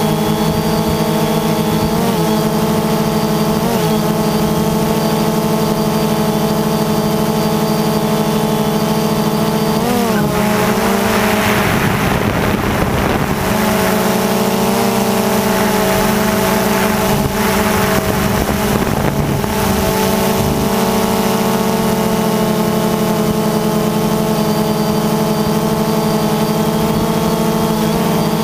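DJI Phantom 2 quadcopter's motors and propellers humming steadily, heard from the GoPro mounted on it. The pitch dips briefly a few times as it manoeuvres, and a rushing noise joins in for several seconds in the middle.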